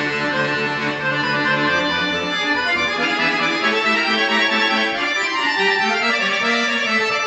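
Piano accordion played solo: quick successions of notes over held lower notes, with a run falling in pitch about five seconds in.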